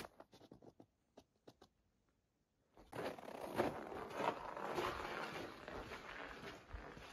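Footsteps crunching in snow: a few faint scattered crunches, a brief silence, then steady crunching from about three seconds in.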